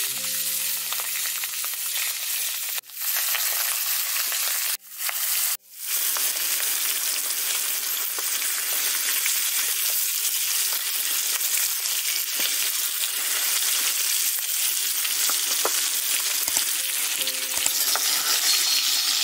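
Marinated fish pieces sizzling as they fry in hot mustard oil in a wok, with steady spitting and the occasional scrape of a spatula. The sizzle cuts out suddenly for a moment about three seconds in and twice around five seconds in.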